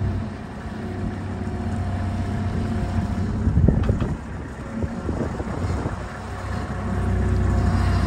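Skid steer loader's engine running as it carries the roadster, eased back around the middle and throttling up again near the end, with a few clunks and rattles from the load.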